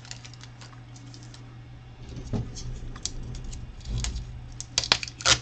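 Light plastic clicks and rattles from handling Lego parts cups, with a few louder clicks near the end, over a steady low hum.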